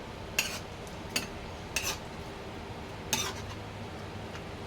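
A metal utensil clinking against cookware four times, each strike short and ringing briefly, over a steady low hum.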